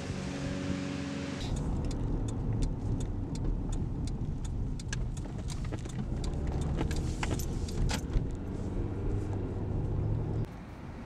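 Inside a moving Toyota sedan: low engine and road rumble with irregular light clicks and rattles. It starts abruptly about a second and a half in and cuts off sharply near the end.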